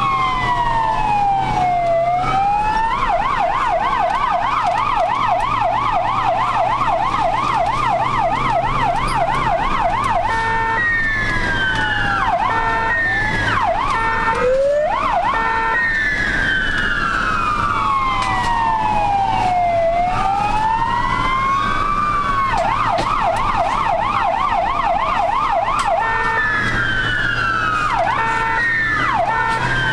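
Ambulance siren heard from inside the cab, switching between a slow rising-and-falling wail, a fast yelp, and short quick sweeps with broken steady tones, over a low steady drone of the vehicle.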